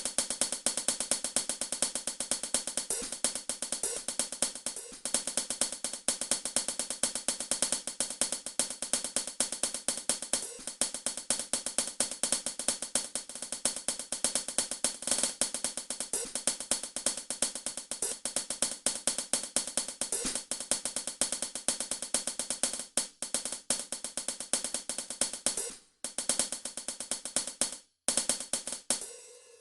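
A percussion instrument played as a sound-check demo: a fast, steady run of bright strikes, with two short breaks near the end.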